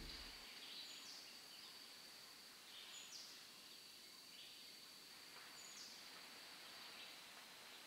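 Faint outdoor ambience: a steady high-pitched insect drone, with a bird giving a short, high, falling call every two to three seconds.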